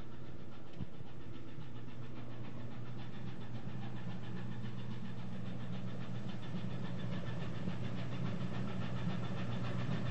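Ship's engine running with a steady low hum, a little stronger from about four seconds in.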